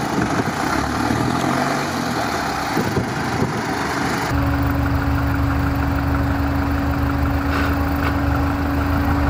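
GAZ-63 truck's engine idling steadily. About four seconds in the sound shifts to a heavier, steadier idle with a constant tone over it.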